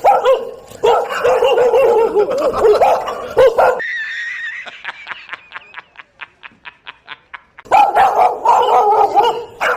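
Dog barking and yelping in quick, overlapping calls. About four seconds in it breaks off for a brief high steady tone and a run of quick, evenly spaced ticks, then the barking resumes near the end.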